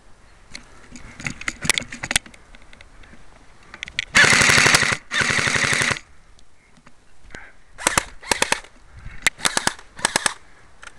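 Airsoft gun firing on full auto: two loud rapid bursts of about a second each, about four seconds in, then several short bursts of a few shots each near the end.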